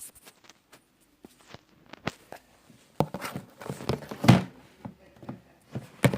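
A series of short, irregular knocks and thumps in a small room, sparse at first and coming thicker and louder from about halfway through.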